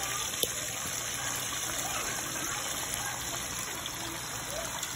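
Chicken pieces sizzling in a hot pot: a steady hiss, with a single click about half a second in.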